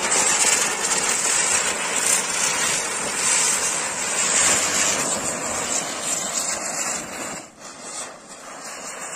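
Three chakri ground spinner fireworks spinning together with a steady, loud hiss of spraying sparks. The hiss starts suddenly as they catch, then weakens and sputters unevenly over the last two seconds as they burn out.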